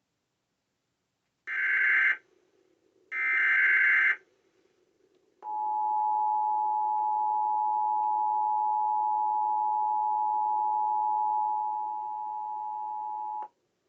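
Two short bursts of Emergency Alert System SAME header data, a buzzing digital screech, followed by the EAS two-tone attention signal held steady for about eight seconds. This is the start of a relayed severe thunderstorm warning.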